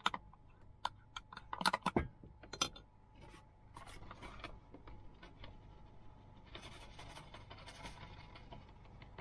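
A utensil stirring pancake batter in a bowl: small clicks and scrapes against the bowl, a few louder knocks in the first seconds, then a quicker, steadier run of mixing strokes.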